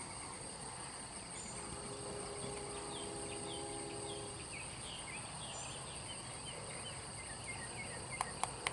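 Insects chirping in a steady high-pitched drone, with a bird calling short falling chirps over and over through the middle. A few sharp clicks near the end.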